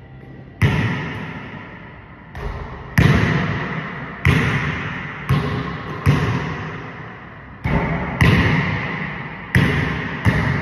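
Basketball bouncing hard on a hardwood gym floor: about ten loud impacts at uneven intervals, each followed by a long echo in the large gym.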